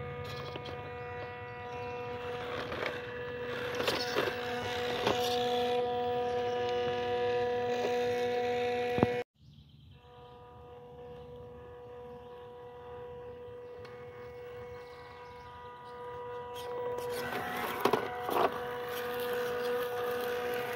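Electric drive motor and gearbox of an FMS Chevrolet K10 RC mini crawler whining at a steady pitch as it crawls, with a few sharp knocks as the tyres and chassis bump over tree bark. The whine cuts off abruptly about nine seconds in, comes back quieter, and grows louder as the truck nears.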